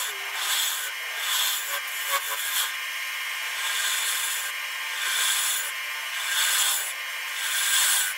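Lathe tool cutting into spinning Fijian mahogany: a continuous scraping hiss that swells and eases about every second as the edge is pushed into the wood. This is the mortise being cut in the base of a large bowl to take the scroll chuck's jaws.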